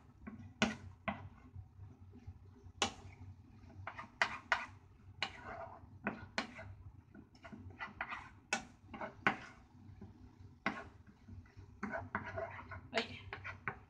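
Wooden spatula knocking and scraping against a frying pan while stir-frying yacon and carrot in a sauce that is cooking down: irregular clicks and scrapes.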